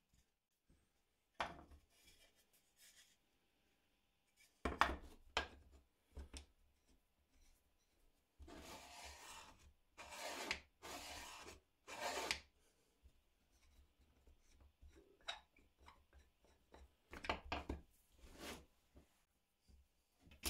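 Wood being worked by hand: a few long rubbing strokes, each about a second, in the middle, with scattered knocks of wooden pieces before and after.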